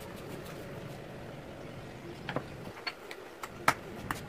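Drill parts being handled on a workbench: a few sharp clicks and knocks in the second half, the loudest near the end, over a faint steady hum.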